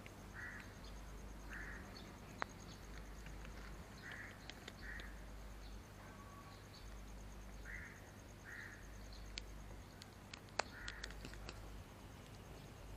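Crows cawing in the distance, short harsh calls mostly in pairs, several times over, above a faint steady high whine. A few sharp clicks, the loudest about ten seconds in, come as a cat eats a treat off the kerb.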